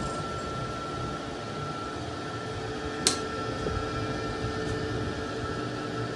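Small vertical milling machine running with a steady hum and faint whine. A single sharp click sounds about three seconds in.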